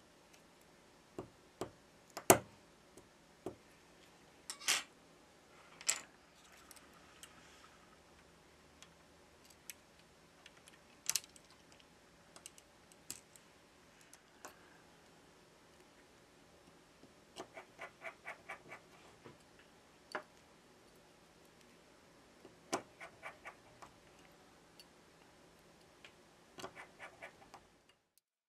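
Small clicks and taps of a metal pick and tweezers against a smartphone's opened frame and internal parts, irregular and scattered, the sharpest about two seconds in, with several short runs of rapid ticking later on. A faint steady hum lies underneath.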